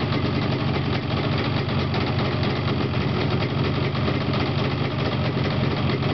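Yamaha RD250LC's liquid-cooled two-stroke parallel-twin engine idling steadily with a fast, even beat, on its first run after two months standing.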